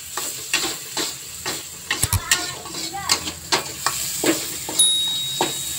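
Metal spatula scraping and knocking against a wok in repeated strokes as vegetables are stir-fried, with the oil sizzling steadily underneath.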